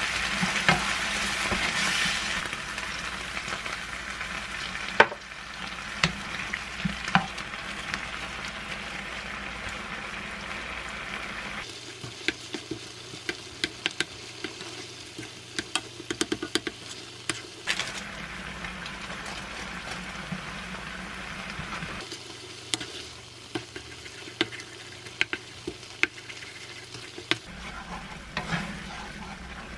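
Kimchi, shrimp and sauce sizzling in a nonstick frying pan while a spatula stirs and scrapes, tapping sharply against the pan many times. The sizzle is strongest in the first few seconds and fainter after, as konjac rice is stirred in.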